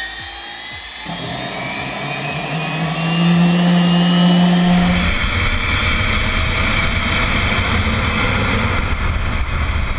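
The MTT Y2K superbike's Rolls-Royce Allison 250 gas turbine runs with a high, steady whine. About five seconds in, a deep rumble joins it, and near the end the whine rises and then falls.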